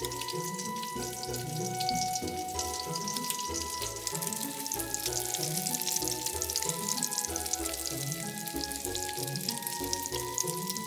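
Starch-dusted yellowtail pieces sizzling and crackling as they shallow-fry in oil in a frying pan. Light background music with a steady bass pattern plays along.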